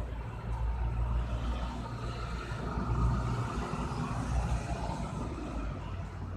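A road vehicle passing: a low rumble with a broad rush of noise that swells about two seconds in and fades near the end.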